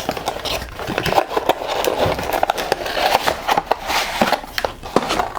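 Intel Core i3-10105 retail box being opened by hand: cardboard and plastic packaging rustling and crinkling, with many small clicks and scrapes.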